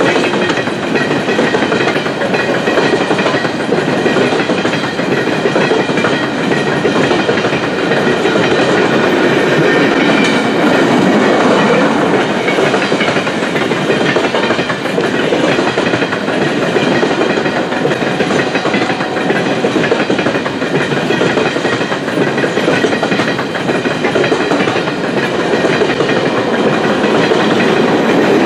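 Coal cars of a Canadian Pacific unit coal train rolling past, their steel wheels on the rails making a loud, steady rumble that goes on without a break.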